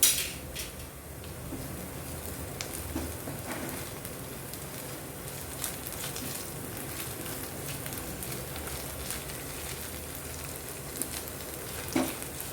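Ginger-garlic paste and onions frying in hot oil in a pan: a steady sizzle with many small pops and crackles. A sharp knock at the start and another near the end.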